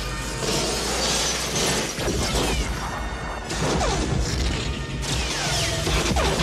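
Film sound effects of electrical sparks crackling and spitting in dense showers, with sharp shattering bursts and several falling whistles over a low steady hum. Orchestral film score plays underneath.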